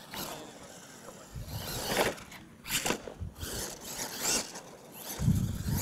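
Solid-axle R/C monster truck driving on loose dirt, its tires scraping and throwing dirt in several short bursts, with a low rumble near the end.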